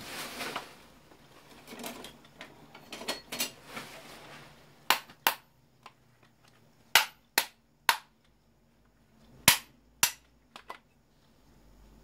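Parts of an electric fan being taken apart by hand: a brief scraping rustle, then a string of sharp, separate knocks and clacks, some in quick pairs, from about five seconds in.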